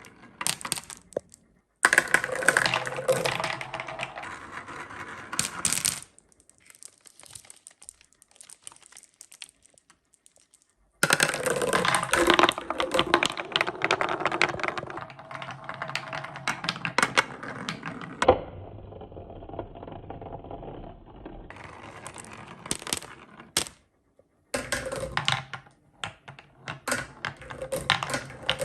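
Many glass marbles rolling and clattering down a wooden marble run: a dense, uneven stream of small clicks and rattles. It falls almost silent for a few seconds about a fifth of the way in, and stops and starts abruptly several times.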